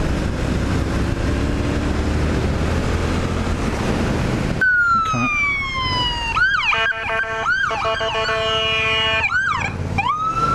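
Yamaha MT-07 parallel-twin engine running under wind noise while riding. About halfway in, an ambulance siren takes over: a falling wail, then a fast yelp over a steady horn tone, then a rising wail again near the end.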